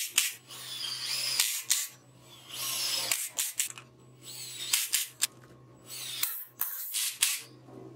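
Power drill-driver driving screws into plywood in several short runs, its motor whine sliding down in pitch within a run as the screw tightens.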